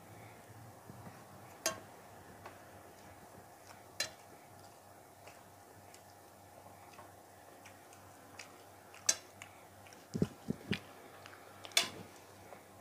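Fingers and metal rings clicking against a steel plate while rice is mixed by hand, four sharp clicks spaced several seconds apart. A few soft low thuds come close together near the end.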